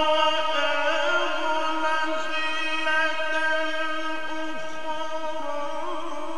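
A man's Quran recitation through a sound system with heavy echo: a long held note rings on at one pitch and slowly fades, with faint vocal turns over it.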